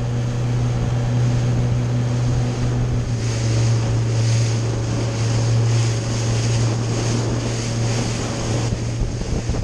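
Motorboat engine running steadily at speed, a constant low drone, over the rush of water churning in the wake and wind buffeting the microphone.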